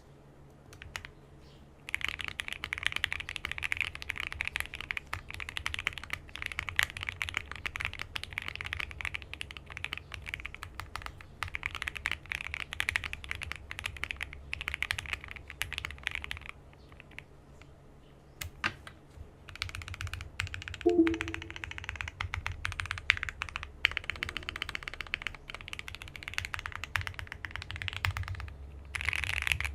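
Typing on a Keychron Q2 aluminium-case mechanical keyboard with Gateron Cap Golden Yellow V2 linear switches: a fast, steady run of key clacks starting about two seconds in, with a pause of a few seconds past the middle.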